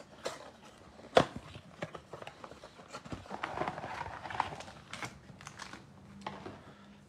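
Trading-card hanger box and card pack being handled: scattered light taps and clicks of card stock with some rustling, and one sharper click about a second in.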